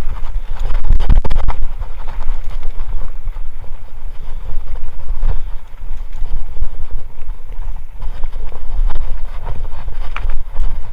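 Kona Honzo hardtail mountain bike ridden over rough trail: a loud, irregular clatter of knocks and rattles as the tyres hit roots and rocks, over a constant low rumble of wind and ground noise.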